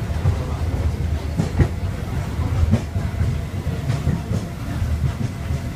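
Hong Kong Peak Tram funicular car running uphill on its rails, heard from inside the carriage: a steady low rumble with irregular clacks from the wheels and track.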